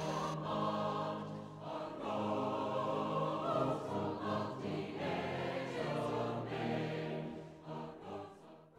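Choral music: a choir singing held chords that change every second or so, fading out near the end.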